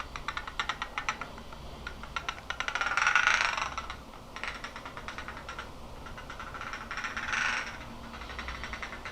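Two glasses rubbed or knocked together, making a fast, repetitive run of tiny glassy tics, like a rattling chatter. The ticking swells louder about three seconds in and again near the end.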